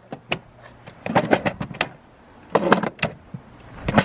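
Craftsman VersaStack plastic toolbox drawers sliding on their runners and clacking, with metal hand tools rattling inside them, in a few short bursts about a second apart.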